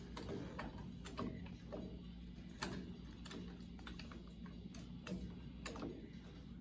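Faint, irregular small metallic clicks and ticks as steel brake lines and their flare nuts are handled and hand-threaded into the master cylinder and proportioning valve, over a low steady hum.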